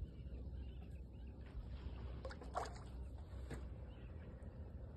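Faint low rumble of water and wind around a small aluminium fishing boat, with a few brief clicks and knocks.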